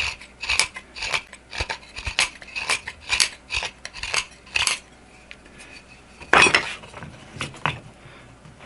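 Steel knife blade (CPM S125V) making repeated cutting or scraping strokes, about two a second, which stop after about four and a half seconds. About six and a half seconds in there is a single loud clatter, followed by a few light clicks.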